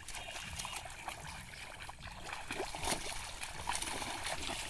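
Shallow muddy water trickling and splashing as two people wade and feel through the mud with their hands, with a sharper splash about three seconds in.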